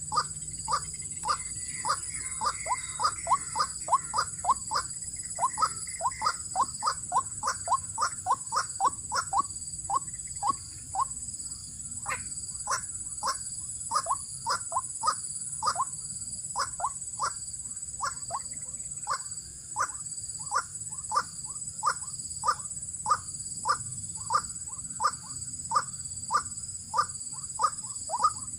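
White-breasted waterhen calls: short falling notes repeated over and over, about two to three a second, with a steady high insect drone behind.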